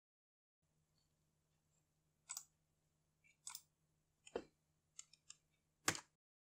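Short, sharp clicks of a computer mouse and keyboard, about eight of them in four seconds with the loudest near the end, over a faint steady hum.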